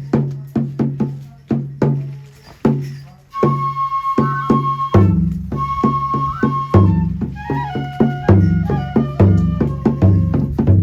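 Kagura music: steady drum beats, joined about three seconds in by a flute holding high notes, with the drumming growing heavier and denser about halfway through.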